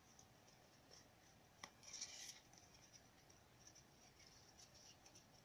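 Faint crinkling and scraping of a foil trading-card booster pack being opened and handled, with a small click about a second and a half in and a brief louder rustle around two seconds.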